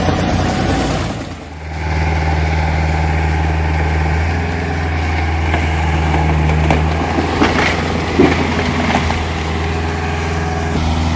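Diesel engine of a heavy machine running steadily with a low hum, with a few faint knocks. The sound dips and changes briefly about a second and a half in.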